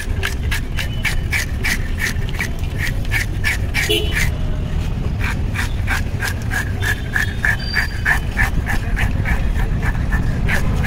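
Rapid, rhythmic scraping of a broad knife blade against the side of a clown knife fish (chital) as its scales are stripped off, about four rasping strokes a second with a brief pause about four seconds in. A steady low background rumble runs underneath.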